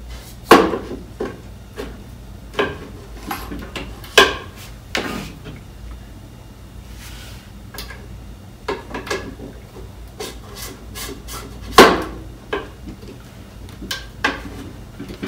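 Metal guide rods of a delta 3D printer being handled and slid into its carriages and base. They make irregular knocks, clunks and scrapes of metal on metal, loudest about half a second in and again near 12 seconds.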